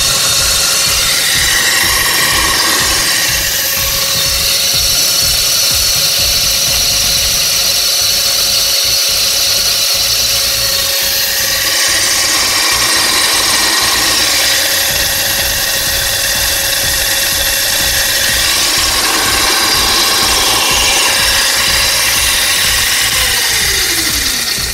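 Homemade chain-driven cutter's 250 W, 24 V DC motor switched on and running unloaded. It drives a roller chain to a small toothed disc and makes a steady whine over a fast, low rattle.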